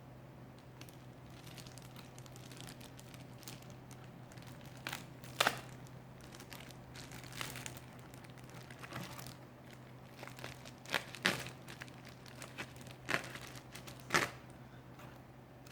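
Packaging being handled and unwrapped: scattered crinkling and rustling of a mailer bag, with a few sharper crackles, over a steady low hum.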